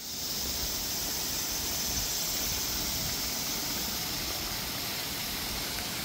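Steady rush of water from a small stream cascading over rocks, an even hiss that swells in over the first half second.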